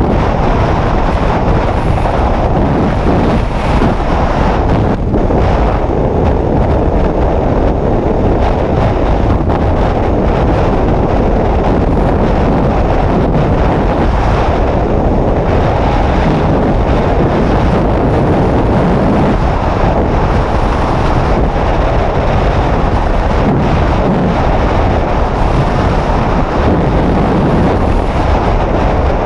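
Loud, steady rush of freefall wind buffeting the camera's microphone, low and unbroken throughout.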